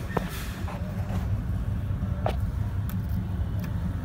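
Steady low outdoor rumble, with a couple of brief faint clicks.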